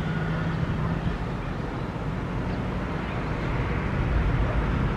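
Jet engines of a Boeing 767 rolling out on the runway just after touchdown: a steady low rumble.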